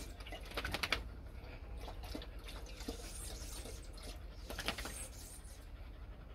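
A dog lapping water from a metal bowl: two short runs of quick wet clicks, about half a second in and again around four and a half seconds.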